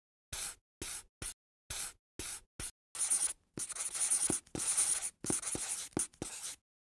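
Felt-tip marker drawing on a whiteboard. Six short separate strokes are drawn first, then longer, nearly continuous scratching as the square is hatched in, stopping just before the end.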